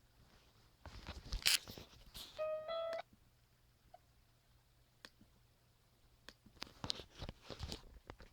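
Knocks, clicks and clattering handling noises, with two short beeps of slightly different pitch in a row about two and a half seconds in, then more scattered clicks and taps.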